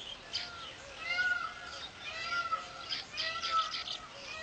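Weaver birds calling: a string of short, arching, meow-like calls, one every half second to a second, over quick scratchy chatter.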